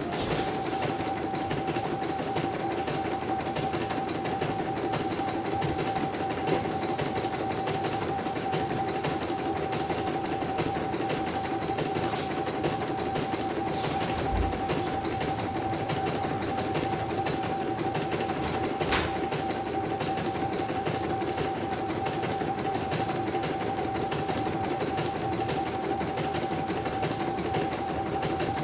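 A CNY E900 computerised embroidery machine stitches a design, its needle mechanism and hoop drive running at a steady even speed with a constant hum. A few sharper clicks stand out briefly.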